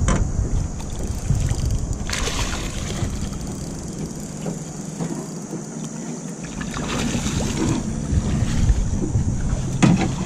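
Water splashing beside a small boat's hull as a hooked bull shark pup thrashes at the surface, over wind rumbling on the microphone. A sharp knock comes near the end.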